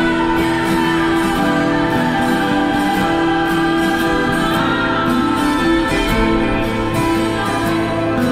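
Background music: a song with singing over sustained chords.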